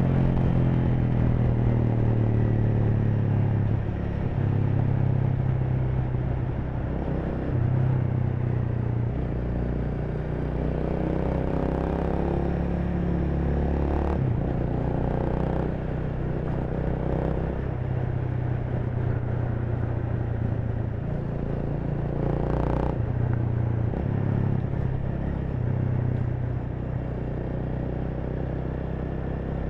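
Honda Rebel 300's single-cylinder engine running as the motorcycle is ridden, its note stepping up and down with throttle and gear changes. Two short clicks stand out, about halfway through and again near three-quarters of the way.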